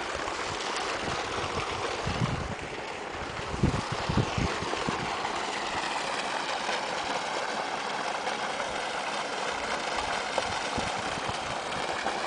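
Steady rushing outdoor noise, with a few low buffets of wind on the microphone between about two and five seconds in.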